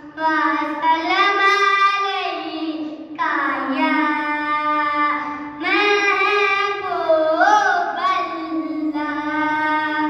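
A boy singing a naat, a devotional poem in praise of the Prophet Muhammad, solo and unaccompanied, in long held phrases with an ornamented wavering note about three-quarters of the way through.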